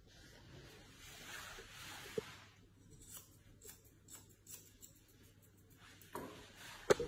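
Grooming scissors trimming a Shih Tzu's facial hair: a few light, separate snips about three to five seconds in, with soft rustling of hair and hands, and a sharper click near the end.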